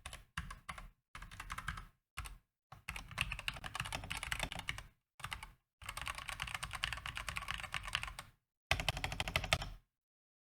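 Typing on a Gamakay LK67 65% mechanical keyboard with Gateron switches and PBT keycaps: several quick bursts of rapid keystrokes with short pauses between them, stopping shortly before the end.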